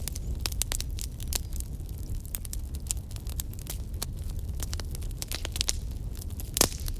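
Wood fire crackling, with many small irregular pops and snaps over a steady low rumble, and one louder pop near the end.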